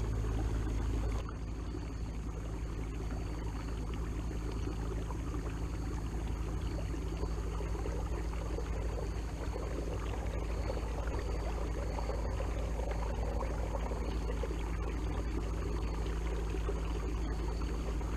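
Watersnake T24 electric trolling motor running steadily on a kayak, a low hum with water rushing and trickling along the hull. The sound dips slightly about a second in.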